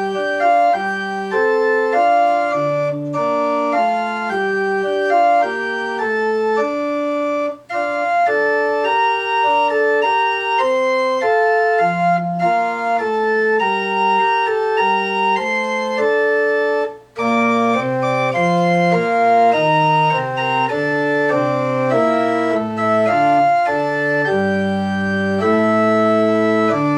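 Church organ playing a slow piece in sustained, held chords, with short breaks between phrases about eight and seventeen seconds in; after the second break, lower bass notes join in.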